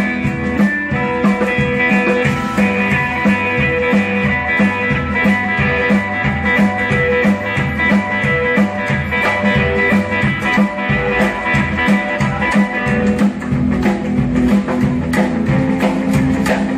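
Small roots-rockabilly band playing live: Telecaster electric guitar, drum kit and upright double bass, an instrumental groove with a steady beat.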